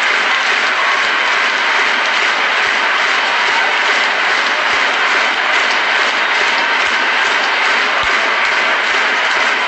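Arena crowd applauding steadily, a dense, even clatter of many hands.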